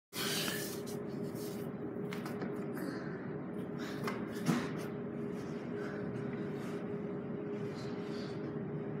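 Steady room hum with soft rustles and knocks from the phone being handled and set down, and one sharper knock about four and a half seconds in.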